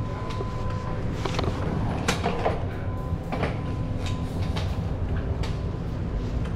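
Steady low drone of a car ferry's machinery, with irregular knocks and clatter, the loudest about two seconds in.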